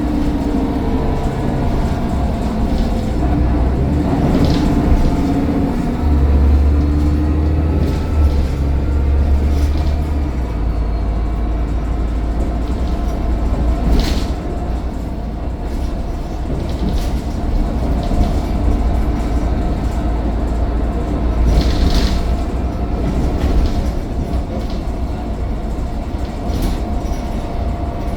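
Mercedes-Benz Citaro O530 bus running on the road, heard from on board: a steady engine and road rumble with a faint turbocharger whine that slowly shifts in pitch, and three short knocks or rattles along the way.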